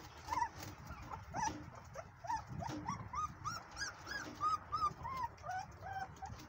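Young puppies, a few weeks old, whimpering: a steady run of short, high whines, about three a second, each rising and then falling in pitch.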